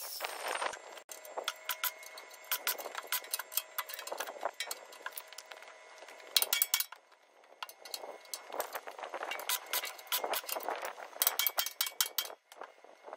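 Irregular light metallic clinks and scuffs of steel tools being handled and set down, with a sharper knock about six and a half seconds in.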